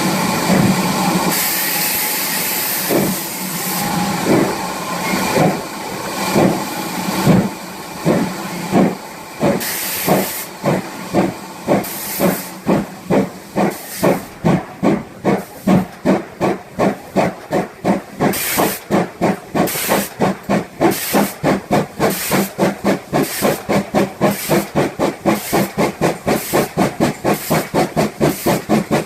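GWR 5600 class 0-6-2 tank engine 5619 starting away from a station: a steady hiss of steam, then exhaust beats that begin slowly, about one a second, and quicken steadily into a fast, even chuffing as the locomotive gathers speed.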